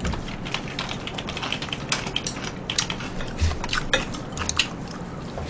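Typing on a computer keyboard: irregular key clicks, several a second, with a couple of soft knocks about halfway.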